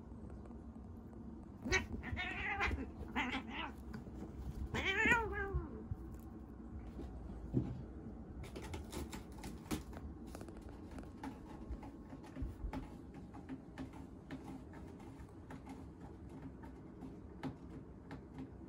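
Tabby cat giving three angry, wavering cries, the last the longest and loudest, warning off another cat that is pestering it. Scattered light clicks and knocks follow.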